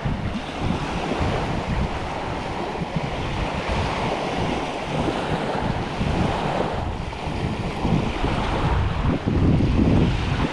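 Waves washing onto a sandy beach, with wind buffeting the microphone in uneven gusts.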